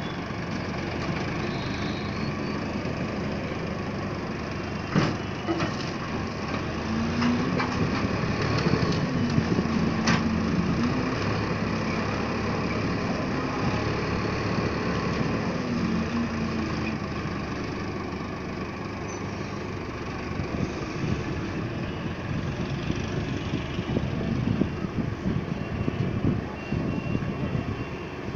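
Tractor diesel engine running under the load of its hydraulic grab loader, the engine note rising and falling twice as the grab works. There are a couple of sharp knocks along the way.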